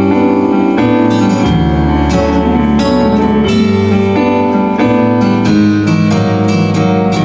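Live band playing an instrumental passage with no singing: electric piano chords over bass, with guitar strumming in an even rhythm from about the middle on.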